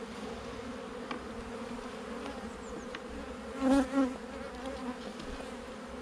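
Honeybees buzzing in a steady hum over the opened hive's frames, louder for a moment a little past halfway.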